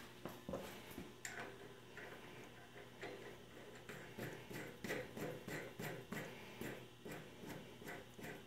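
Faint, light metallic clicking, a few clicks a second, as a hex nut is spun by hand along freshly die-cut 1/2-13 threads on a steel rod held in a lathe chuck.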